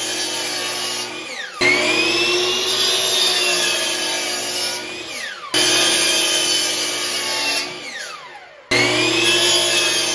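Hitachi sliding miter saw cutting 2x4 boards to length, its motor whining loudly. The motor winds down with a falling whine three times and starts up again after each, for a string of cuts in quick succession.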